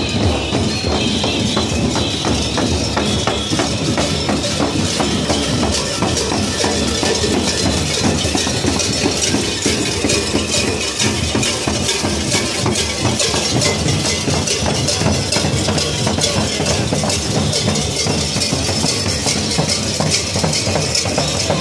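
Folk drumming in a fast steady rhythm, loud and continuous, with a high melodic line over it in the first few seconds.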